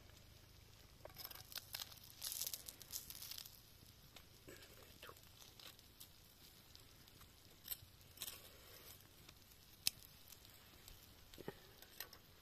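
Crinkling and rustling for a couple of seconds near the start, followed by scattered light taps and clicks, one sharp click about ten seconds in.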